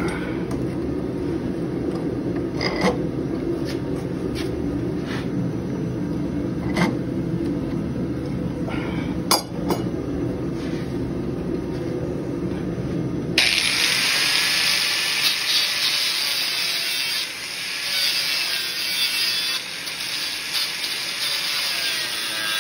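A steady low rumble with a few sharp taps. About halfway through it cuts abruptly to an electric angle grinder grinding into a steel canister-Damascus billet clamped in a vise: a loud, hissing grind whose pitch wavers as the disc is loaded.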